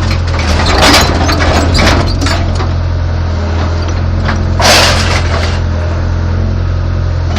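Caterpillar excavator's diesel engine running steadily with a constant low hum, heard from inside the cab. Sharp knocks sound about one and two seconds in, with a louder one near the middle.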